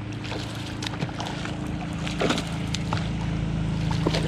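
A hooked Australian salmon splashing at the surface as it leaps, a few sharp splashes over a steady low hum.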